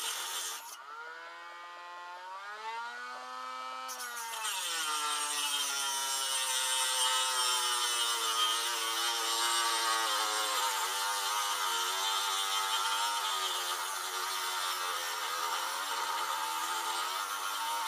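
Small battery-powered rotary tool grinding weld inside a steel motorcycle exhaust baffle: a high motor whine over a hissing grind. About a second in the grinding stops and the motor speeds up free-running, then around four seconds in the bit bites again, the whine drops, and it carries on steadily under load.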